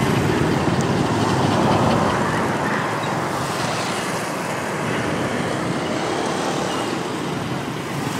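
Steady street traffic noise, with motor scooters and motorbikes passing close by.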